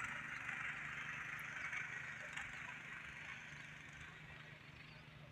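Faint steady outdoor background: a low engine-like hum under a steady high hiss that slowly fades.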